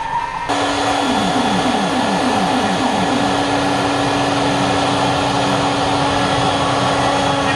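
CNC router spindle running and cutting plywood, a steady whine and hiss that cuts in abruptly about half a second in. In the first few seconds a run of short falling tones sounds over it.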